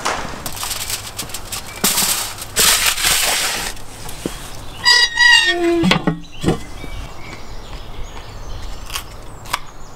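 A foil-covered metal baking tray scraping and rustling as it is pushed into a brick oven, in several noisy bursts. About five seconds in comes a short animal call with a wavering pitch.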